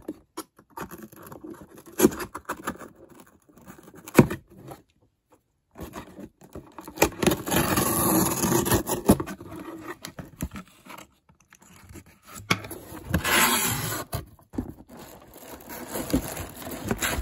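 Cardboard shipping box being pulled and torn open by hand: scraping and rustling of cardboard in irregular bursts, with a few sharp knocks.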